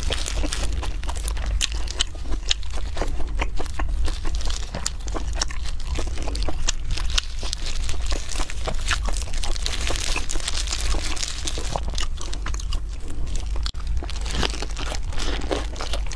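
Close-miked eating of crispy-skinned roast duck: many short crunches and wet chewing sounds as it is bitten and chewed. Disposable plastic gloves crinkle as pancake wrappers are folded and handled, over a low steady hum.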